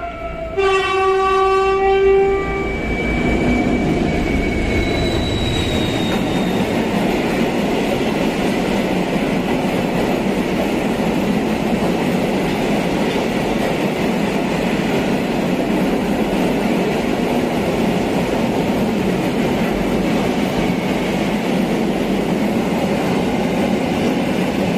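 Freight train hauled by two diesel locomotives, a TEM2 and an SM42, passing close by. A loud horn blast starts about half a second in and lasts about two seconds. After it comes the steady rumble of the long line of hopper wagons rolling past on the rails.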